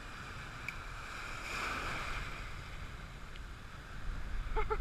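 Rough sea surf washing in around rocks, with wind rumbling on the microphone. The wash swells up for about a second, starting about a second and a half in.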